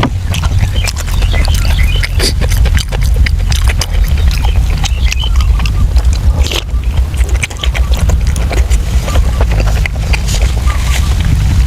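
Close-miked chewing and lip-smacking on soft braised pork intestines: many quick wet clicks and smacks, over a steady low rumble.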